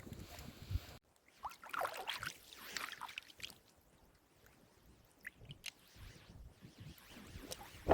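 Faint water trickling and dripping, with a few small clicks, in scattered short sounds.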